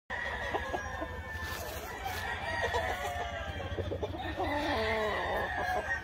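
Gamefowl roosters crowing and chickens clucking, several birds calling over one another, with a longer crow about four seconds in.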